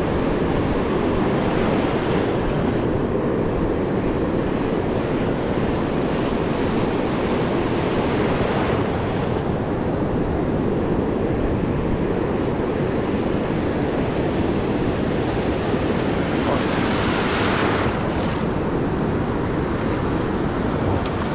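Ocean surf breaking and washing through the shallows, with wind on the microphone. The wash swells louder about eight seconds in, and again, stronger, about seventeen seconds in.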